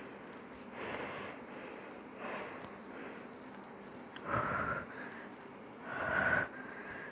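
A woman's heavy breathing under exertion during overhead dumbbell triceps extensions: four breaths about every one and a half to two seconds, the last two louder with a faint whistling tone.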